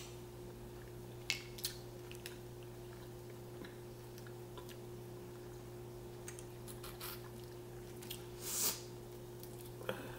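Quiet eating sounds of crawfish being chewed and peeled by hand: a few scattered soft clicks and smacks, and a short breathy sound about eight and a half seconds in, over a steady low hum.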